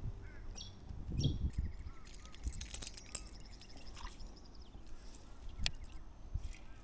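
Birds chirping in short, high calls, with a few sharp clicks and a low thump about a second in.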